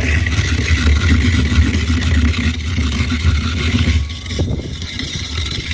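A coconut being scraped against the spinning head of a crank-turned coconut grater, under a loud, steady low rumble.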